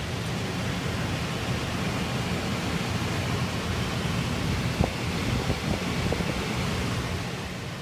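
Air handler blower driven by a newly fitted PSC (capacitor) motor, running: a steady rush of moving air over a low hum. A brief knock comes about five seconds in.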